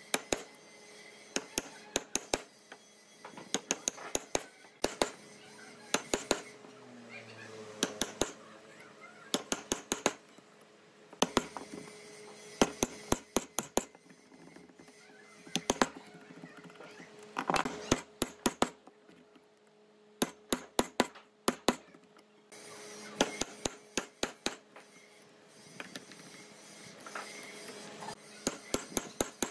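Wood chisel being struck with a mallet to chop a mortise in a wooden board: bursts of sharp taps, several quick blows at a time with short pauses between.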